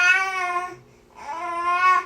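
Baby crying: two wails, each just under a second long, with a short break for breath between them.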